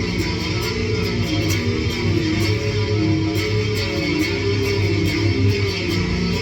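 Electric guitar played continuously through an amp with an overdrive pedal stacked on a distortion pedal, giving a heavy, dirty tone.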